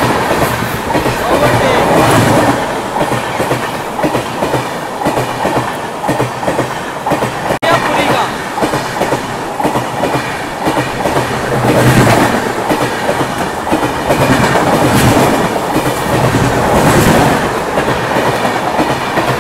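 A passenger express train running past at close range on the next track: a steady rush and rumble of coaches and wheels, with a recurring clickety-clack as the wheels cross rail joints.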